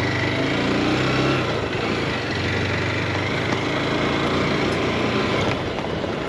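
Motorcycle engine running with a steady note.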